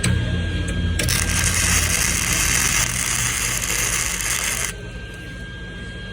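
Welding arc burning for nearly four seconds, starting abruptly about a second in and cutting off just before the five-second mark as the weld is laid on a bolt, over a steady low machine hum and a thin high whine.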